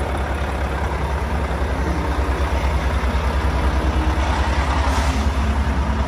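Heavy truck's diesel engine idling steadily, with an even low pulsing throb.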